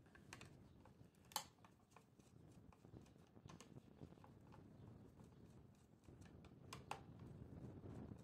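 Near silence with a few faint clicks and taps of a screwdriver turning the terminal screws of a contactor, the sharpest one about a second and a half in.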